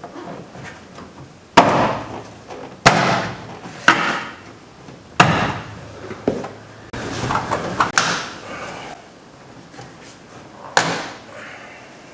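A hand thumping a 1965 Pontiac GTO's interior door trim panel to snap its retaining clips into the door: about six sharp thumps a second or more apart, with smaller knocks and rustling between.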